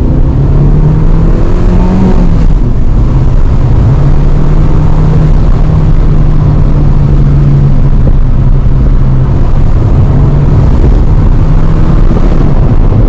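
Stock Fiat Panda 1.2 8v four-cylinder petrol engine under acceleration: its note rises over the first two seconds, falls back about two and a half seconds in, then holds a steady drone.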